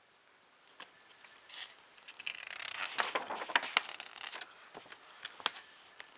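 Magazine pages being turned and handled: a few isolated flicks, then a busier stretch of paper rustling with crisp clicks about two to four seconds in, fading off near the end.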